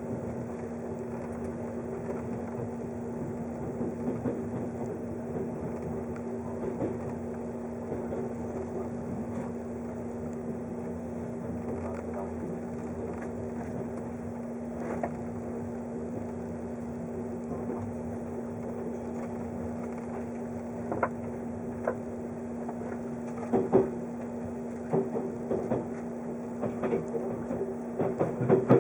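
Running noise heard inside a 583 series electric train: a steady hum with a constant low tone. In the last third, a string of sharp clacks and knocks from the wheels on the track.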